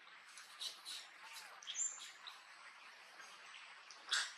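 Scattered short, high-pitched chirps and squeaks of animal calls, a few in the first two seconds and the loudest near the end.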